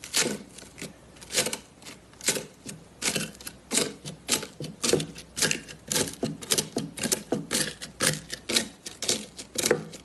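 Slime being worked by hand, making a quick run of sharp crackling clicks and pops, about three a second.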